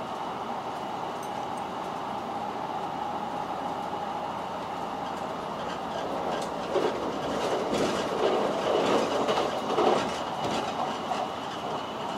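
The Limited Express Sonic electric train running at speed, heard from inside the passenger cabin as a steady rumble of wheels on rail. From about six and a half seconds in it grows louder for a few seconds, with a busy run of wheel clacks.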